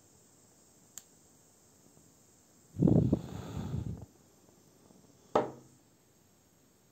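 Butane torch firing at a burning plastic toy figure: a faint click about a second in, then a loud whoosh of flame lasting just over a second that cuts off, and a second short, sharp burst of flame near the end that dies away quickly.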